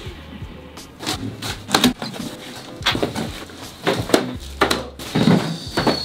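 Irregular knocks, taps and clatter of boxes and packing material being handled, typical of packing parcels for shipping.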